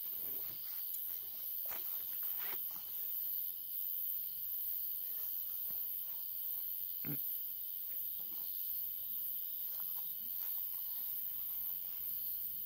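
Steady high-pitched insect chorus, with a few faint knocks scattered through it.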